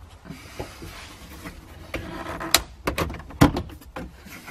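Plastic dash trim being worked loose by hand: rubbing and scraping, then several sharp clicks and snaps as its clips let go, the loudest about three and a half seconds in.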